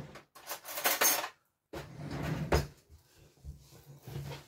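Metal spoons clinking and rattling against dishes and jars in three short bouts of clatter.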